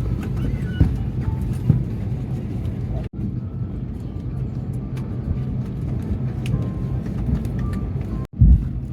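Steady low rumble of a vehicle's engine and cabin, with faint background voices. It cuts out abruptly twice.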